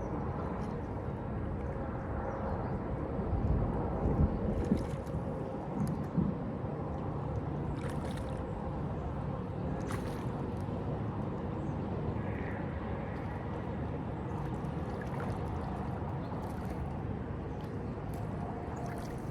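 Steady riverside outdoor noise of flowing water and wind, with a few low bumps and knocks about three to six seconds in.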